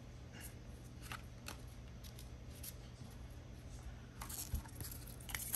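Faint, sparse clicks and light rustles of Yu-Gi-Oh trading cards being handled and slid against one another, a little busier near the end, over a low steady hum.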